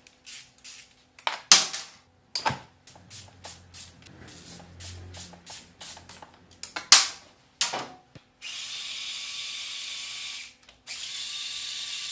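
Tools working on the clutch-cover bolts of a Yamaha R1 motorcycle. There is a run of irregular clicks and knocks, then two steady, hissing power-tool runs of about two seconds each near the end.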